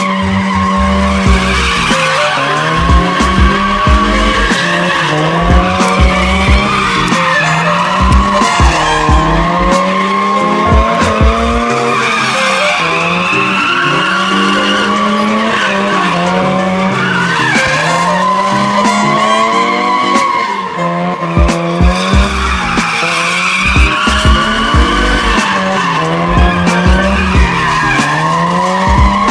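Mazda RX-8's rotary engine revving up and falling back over and over while the car drifts, with tyres squealing steadily throughout.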